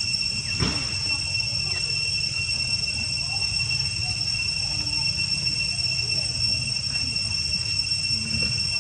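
Steady high drone of insects, two even whining pitches, over a constant low rumble, with a brief thump just under a second in.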